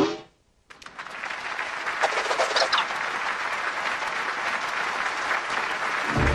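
Cartoon audience applause that starts after a brief silence and builds to a steady clapping, with a short cheer a couple of seconds in. Just before the clapping, a short vocal sound effect cuts off abruptly.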